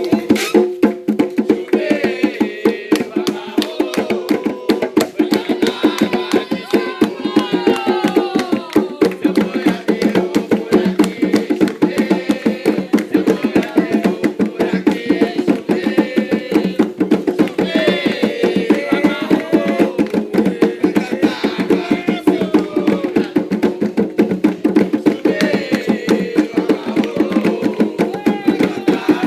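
Fast, steady hand drumming on atabaque drums keeping a ceremonial rhythm, with voices calling out over it now and then.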